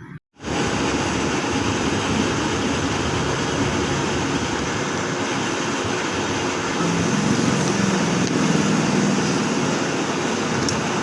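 Steady, loud mechanical running noise that starts abruptly after a cut, under a second in. A low hum grows stronger for a couple of seconds past the middle.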